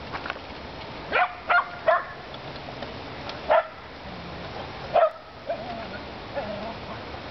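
Shetland sheepdog barking: three quick sharp barks about a second in, then two more single barks a second or so apart.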